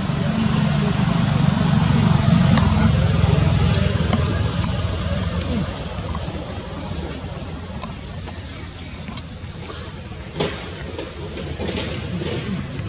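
Low rumble of a passing motor vehicle that swells over the first few seconds and then fades, with a few sharp clicks on top.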